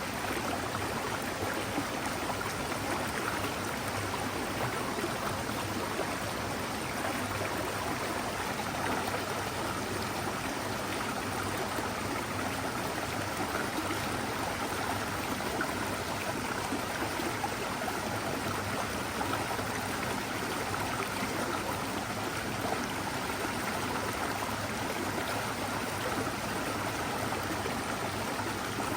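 Mountain forest stream babbling steadily, an even, unbroken rush of flowing water.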